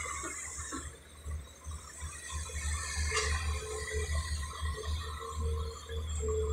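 Hydraulic excavator's diesel engine running with a low throb as the machine digs and lifts mud, with one sharp knock about three seconds in.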